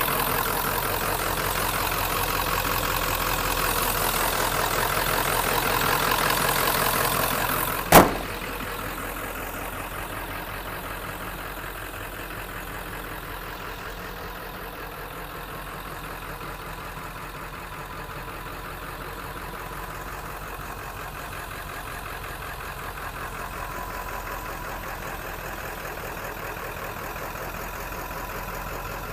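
Ford 7.3 L Powerstroke turbo-diesel V8 idling steadily. A single sharp bang about eight seconds in, after which the idle sounds quieter.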